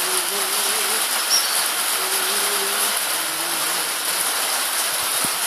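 Steady rain falling on wet ground and pavement, an even hiss. A faint wavering tone comes and goes beneath it.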